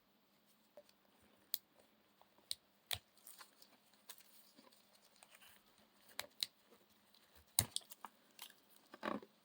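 Scattered sharp clicks and snips of small parts and hand tools being handled while rebuilding a cordless drill battery pack, with a short rustling scrape near the end.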